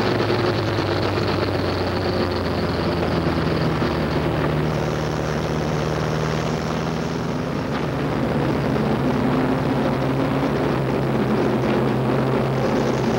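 Short-track race truck's engine running hard at racing speed, heard from inside the cab. It eases off a little about halfway through and then builds back up.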